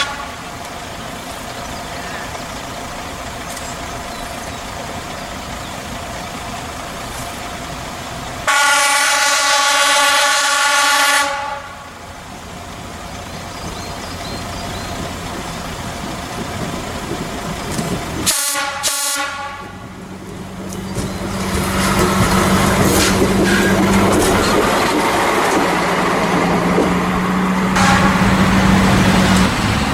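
Class 810 diesel railbus sounding its horn as it approaches a level crossing: one long blast of about three seconds, then a short one about ten seconds later. After that its diesel engine and wheels grow loud as it runs over the crossing and past.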